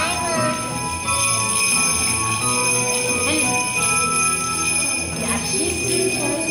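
Many small handheld jingle bells shaken together by a group of young children, a continuous jingling.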